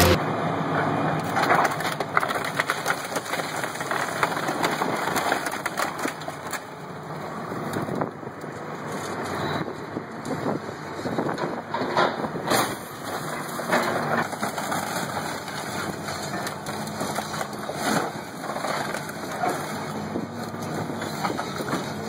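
Car bodies being crushed and torn apart by excavators: sheet metal crunching and creaking with many irregular sharp cracks and snaps.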